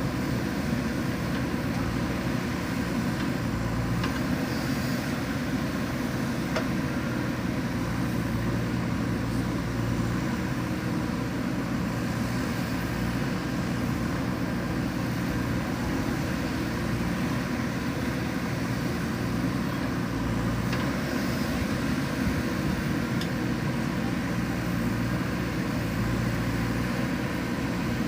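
Diesel engine of a JCB backhoe loader running steadily under work, with a few faint knocks a few seconds in.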